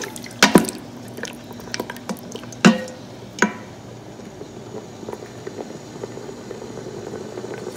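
Wooden spatula knocking against the stainless-steel inner pot of an Instant Pot, four sharp knocks in the first three and a half seconds, over the steady low bubbling of a watery meat curry heating on sauté.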